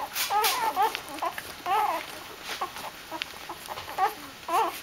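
Young Doberman puppies whining and squeaking in short, high, wavering calls, about two a second.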